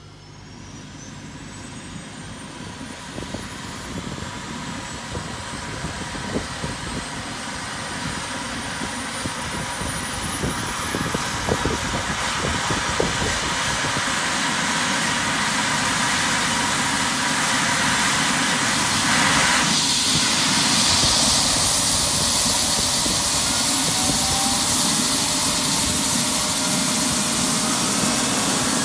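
Eurocopter EC135 medical helicopter spooling up on the ground: turbine whine climbing steadily in pitch while the rotor spins up. It grows louder over roughly the first twenty seconds, then holds at a steady run.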